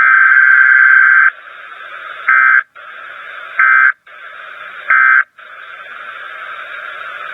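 Weatheradio Canada's digital alert-code (SAME) data bursts over radio hiss: one warbling data tone about a second and a half long, then three short bursts a little over a second apart, each followed by a brief dropout.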